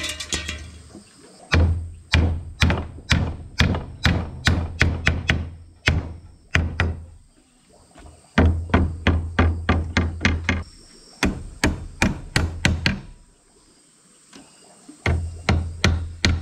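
Hammer driving nails into the planks of a wooden frame: three runs of sharp blows, about three a second, each with a dull thud, and short pauses between the runs.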